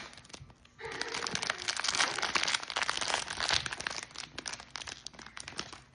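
Crinkly plastic blind-box packaging being handled and pulled open by hand, a dense run of irregular crackling and rustling that starts about a second in.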